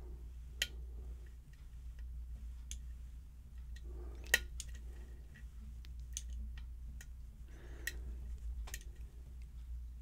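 Light, irregular metallic clicks of a lock pick and tension wrench working in a pinned challenge lock, with one sharper click about four seconds in.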